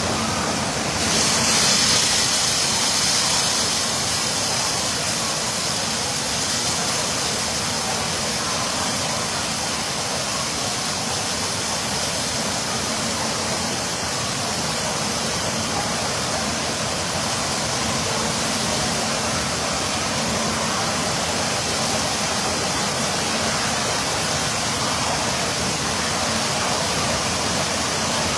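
Steady rush of falling water from overhead rain-shower bars pouring into a churning spa pool, growing louder and brighter about a second in.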